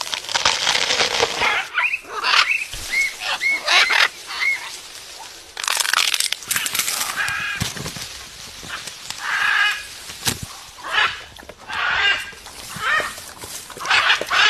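A parrot calling again and again: harsh screeches mixed with short whistled notes that rise and fall.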